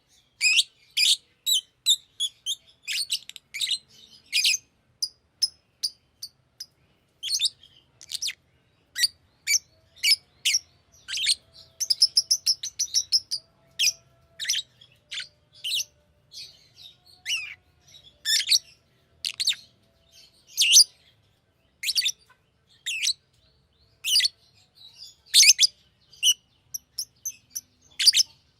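Green lovebird chirping: a long run of short, sharp, high chirps in irregular bursts, with a quicker twittering stretch about halfway through.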